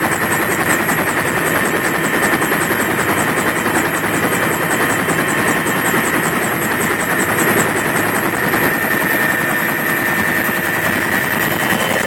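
Helicopter turbine engine and rotor running, heard from inside the open cabin: a steady loud mechanical din with a constant high whine.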